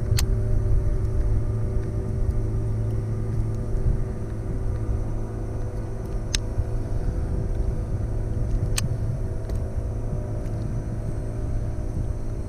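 Steady low motor-like rumble with a held hum, broken by a few sharp clicks: one near the start, one about six seconds in and one near nine seconds.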